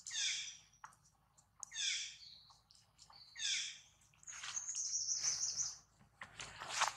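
Monkey giving repeated high-pitched calls that fall in pitch, about one every second and a half, then a longer high steady call and a harsh shriek near the end.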